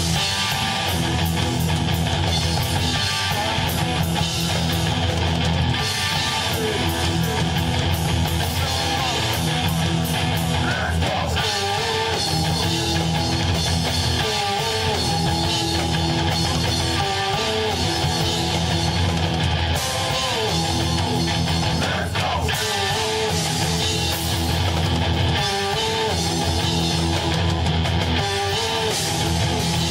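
Live band playing heavy rock, with guitar to the fore, loud and unbroken.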